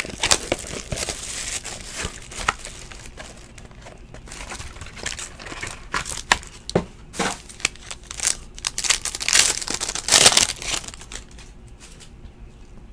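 Plastic shrink wrap crinkling and tearing as it is ripped off a sealed trading-card box, with scattered sharp crackles of plastic being handled and a louder spell of crinkling about nine to ten seconds in.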